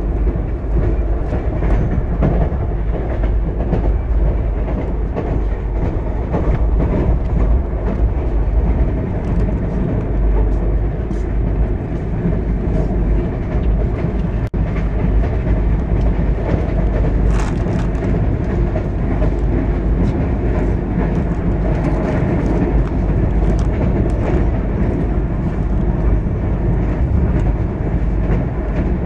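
Express train coach running at speed, heard from inside at the window: a steady, loud rumble of wheels on rail with irregular sharp clicks from the wheels passing over joints and points. There is a brief dropout about halfway through.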